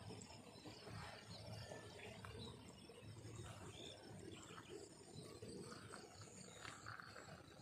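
Near silence: faint field ambience, a low steady rumble with a few faint, short, high chirps.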